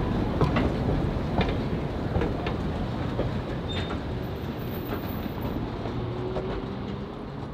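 Narrow-gauge passenger cars rolling past, a low rumble of wheels on rail with irregular clicks and clanks, slowly fading.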